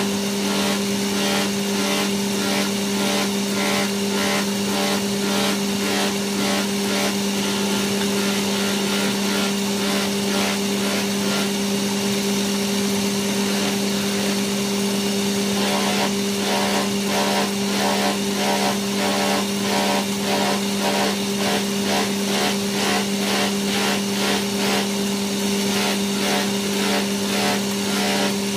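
Electric motor driving a cloth buffing wheel, running with a steady hum, while a wooden mortar is pressed against the spinning wheel and turned by hand for polishing. The contact gives a rhythmic swishing, about two pulses a second, plainer in the second half.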